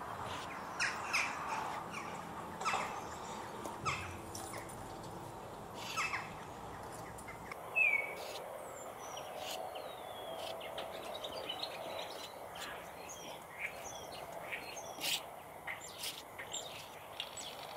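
Small birds chirping, with short scrapes of a painting knife dragged over a canvas.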